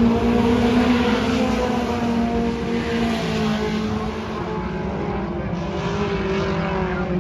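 Several dirt-track stock car engines running as the cars circle the oval, their pitch drifting up and down, a little quieter in the second half.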